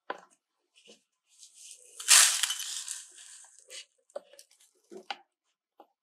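A plastic dustpan is knocked down onto the bench, then fine grit is poured out of a metal tray with a gritty hiss, loudest about two seconds in and trailing off before four seconds. A few light clicks and knocks follow near the end as small metal parts and the tray are handled.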